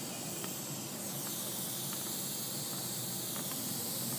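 Dental suction tip in the mouth, drawing air with a steady hiss that grows fuller about a second in.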